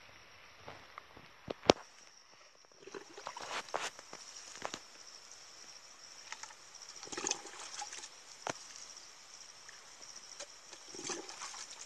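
Water scooped from a plastic bucket with a small dipper and poured onto the soil around seedlings in a few short splashes, with sharp knocks of the dipper against the bucket, the loudest about two seconds in.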